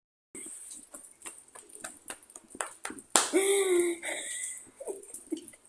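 Scattered light clicks and taps, then a domestic cat's single loud meow about three seconds in, lasting under a second.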